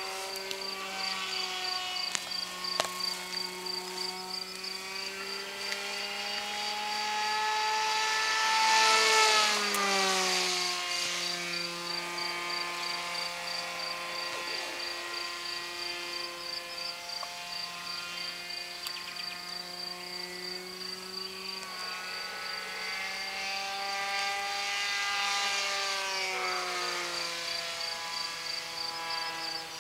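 RC model F-16 jet driven by a Speed 600 electric motor, flying overhead: a steady whine that grows louder and then drops in pitch as the model passes, twice, about nine and twenty-five seconds in.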